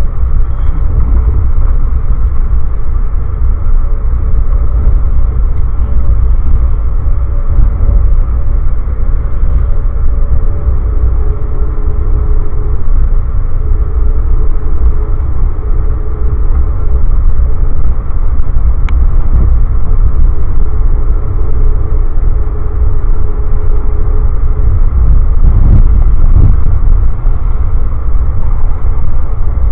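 Steady, loud rumble of an Amtrak passenger train running at speed, heard from inside the coach, with faint humming tones that come and go through the middle.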